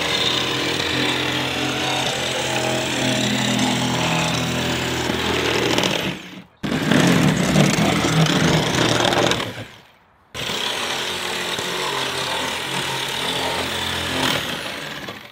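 Corded reciprocating saw cutting through wooden siding boards. It runs in three stretches, stopping briefly about six seconds in and again near ten seconds, and is loudest in the middle stretch.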